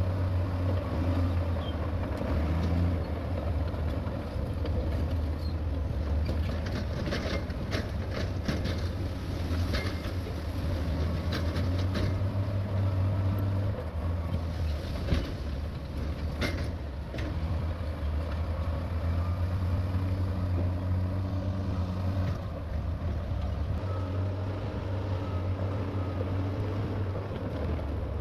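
Heavy earthmoving machinery's diesel engine running steadily with a deep drone, with a run of sharp metallic clanks and knocks from about six to seventeen seconds in.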